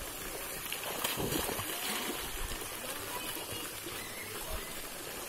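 Steady splashing and running water in a swimming pool fed by a fountain jet, with a child wading through the water; faint voices now and then.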